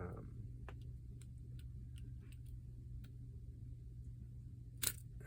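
Faint, scattered small clicks and ticks from handling and prying at a partly cut-open padlock, with one sharper click near the end, over a steady low hum.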